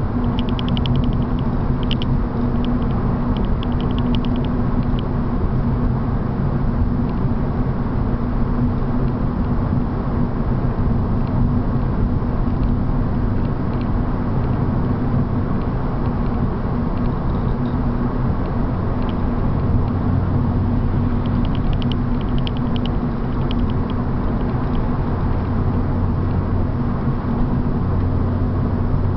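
Cabin sound of a BMW 328 cruising at steady motorway speed: an even straight-six engine drone under tyre and road noise. Short spells of light ticking come near the start and again about three-quarters through.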